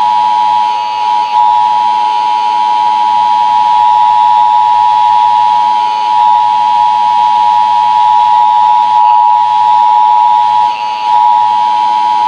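Emergency Alert System attention signal: a loud, steady two-tone electronic alarm note held without a break, with brief dips in level about a second in and near the end.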